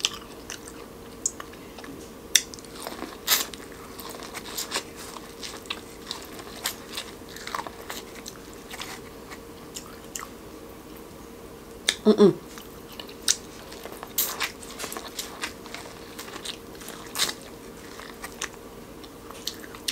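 Close-miked biting and chewing of corn on the cob: irregular crisp crunches as the kernels are bitten off the cob, with wet chewing between them.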